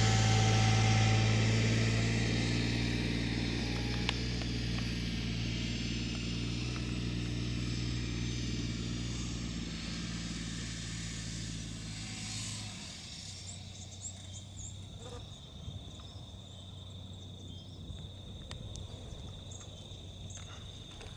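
A low steady machine hum, like an idling engine, slowly fades out over the first dozen seconds or so. After that comes quieter outdoor ambience: a steady high insect drone and faint scattered short chirps.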